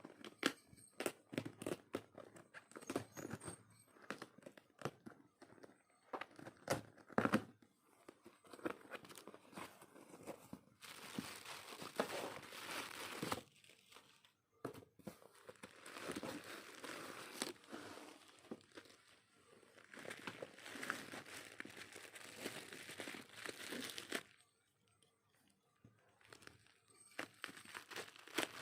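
Packaging being unwrapped by hand: a run of clicks and taps, then long stretches of crinkling and tearing, with a short lull near the end.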